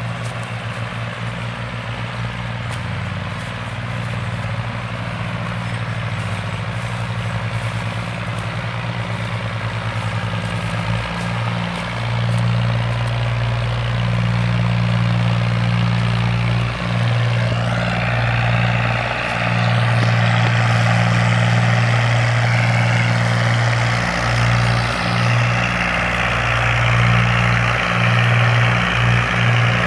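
Diesel farm tractor engines running under load while pulling a heavy trolley of sugarcane. The engine note is steady and grows gradually louder, and a harsher, noisier layer joins it about halfway through.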